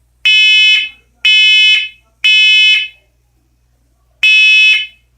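First Alert combination smoke and carbon monoxide alarm sounding during a push-button test: loud, high-pitched beeps in the temporal-three pattern, the standard smoke evacuation signal. Three half-second beeps come a second apart, then after a pause of about a second and a half the next group begins.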